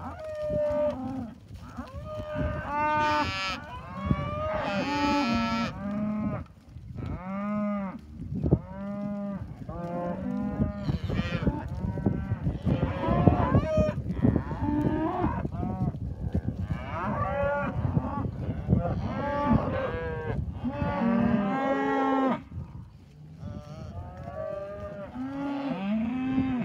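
Black Angus cows and calves mooing and bawling, one call after another with many overlapping, some low and some higher-pitched.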